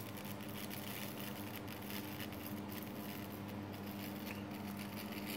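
Homemade DC carbon arc lamp burning between carbon rods, powered through a bridge rectifier from a metal halide ballast. It makes a steady hum with a rough, crackling hiss over it.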